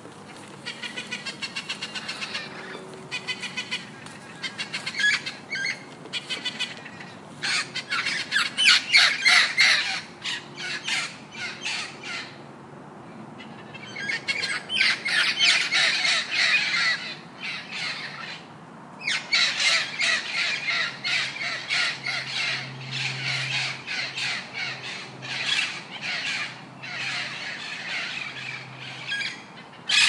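Macaws squawking: runs of rapid, harsh calls with short pauses between the runs.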